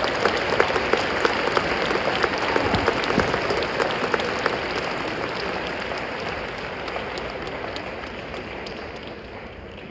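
Spectators in an indoor arena applauding a badminton rally, a dense patter of hand claps that is loudest at the start and fades away gradually over several seconds.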